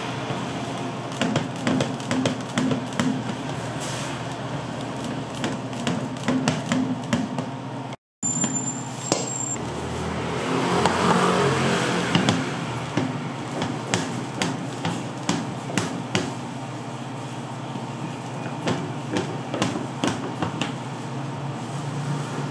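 Irregular clicks and knocks of cooking utensils over a steady low hum, with a vehicle passing about ten to thirteen seconds in. The sound cuts out for an instant about eight seconds in.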